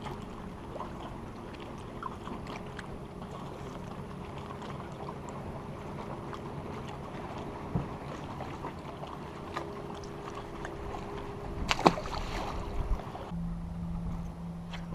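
Steady low hum of a boat's bow-mounted electric trolling motor over light water noise, with small clicks of handling and a sharp knock about twelve seconds in. Near the end the hum changes to a lower single steady tone.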